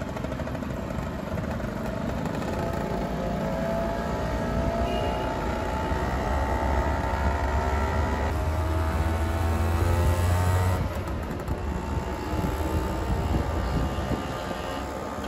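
Scooter engines on the move with a steady low wind rumble. One engine is held on the throttle, its pitch climbing for several seconds, then it eases off sharply about eleven seconds in.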